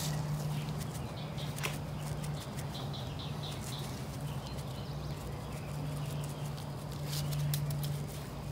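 Dry rub shaken from a shaker bottle onto raw steaks: repeated quick rattling shakes, over a steady low hum.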